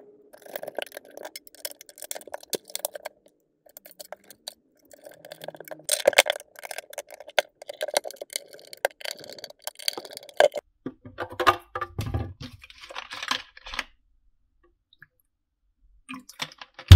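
Irregular small clicks, taps and knocks of hard plastic parts and tiny screws being handled as the plastic case of a glasses cleaner is screwed back together by hand, with a louder knock at the very end.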